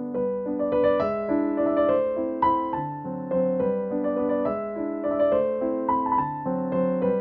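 Background piano music: a melody of single struck notes over sustained lower notes.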